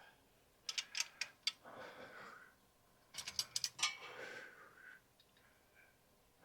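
Ratchet wrench clicking in two quick runs, each followed by a short softer rasp, loosening a small bolt.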